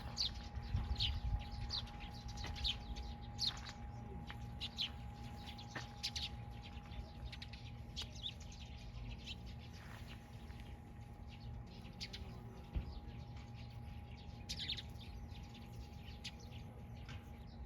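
Small birds chirping: many short, sharp, downward-sliding calls repeated in quick succession, thickest in the first few seconds and sparser later, over a faint steady hum.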